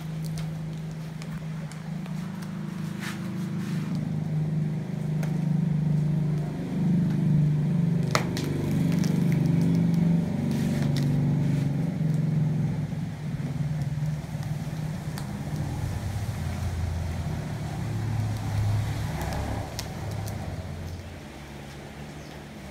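Low hum of a motor vehicle's engine, getting louder in the middle and easing off toward the end. Scattered crackles of banana leaves as they are folded and pressed into a parcel.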